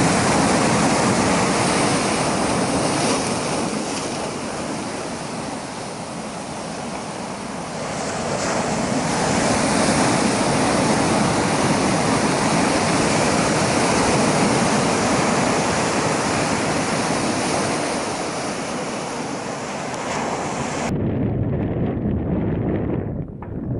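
Sea surf breaking and washing over rocks, a dense rush of waves that swells and eases. About 21 seconds in it cuts off abruptly to wind buffeting the microphone, a low rumble.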